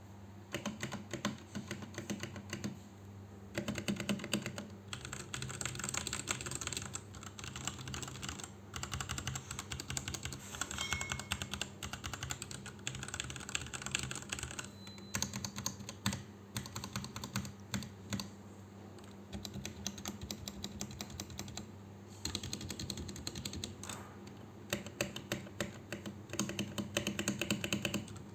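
Typing on a DareU EK884 mechanical keyboard with brown (tactile) switches: a fast, continuous clatter of keystrokes broken by a few short pauses.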